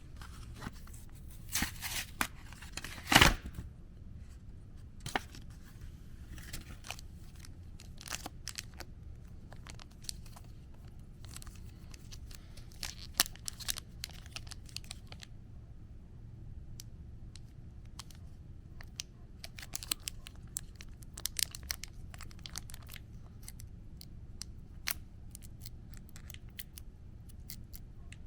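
A foil trading-card booster pack being torn open, with one loud rip about three seconds in, followed by scattered short crinkles and ticks of the wrapper being handled.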